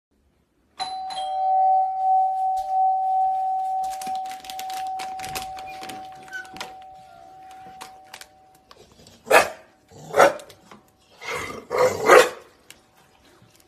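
A doorbell chime rings about a second in and fades away over several seconds, with a few clicks as the door handle is worked and the door opened. Then a dog barks several times, short and loud, near the end.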